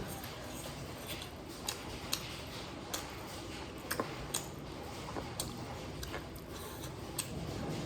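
Eating sounds: irregular sharp clicks and smacks of a mouth chewing and picking at fish, about one or two a second.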